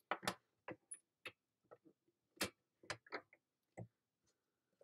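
Faint, irregular light clicks and taps of plastic craft tools being handled on a desk, about a dozen in all, as a stamp ink pad is set down and the paper-crafting turning template is turned.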